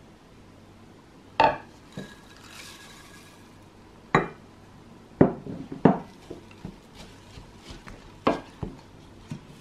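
A bowl knocking against a stainless steel saucepan as rolled oats are tipped in, with a brief rustle of the oats sliding in, then a wooden spoon knocking and scraping in the pan while the oats are stirred into melted chocolate. Several sharp knocks, the loudest about a second and a half in, some with a short metallic ring.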